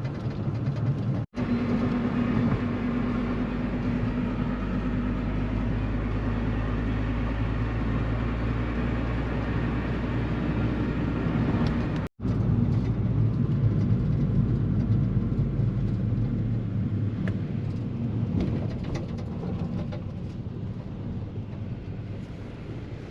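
A vehicle driving on the road: a steady engine hum with road noise, broken by two sudden cuts, about a second in and about twelve seconds in.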